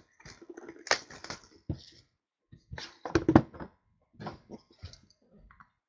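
Plastic shrink wrap crackling as it is stripped off a wooden trading-card box, with irregular clicks and knocks from the box being handled. The loudest knock comes a little over three seconds in.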